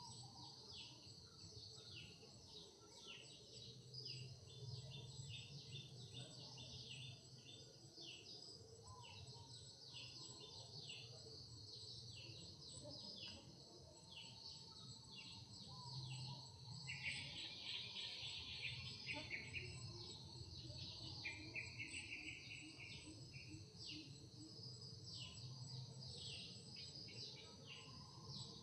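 Faint outdoor ambience of insects buzzing steadily with many short, repeated bird chirps, and a denser trill about 17 seconds in and again about 21 seconds in.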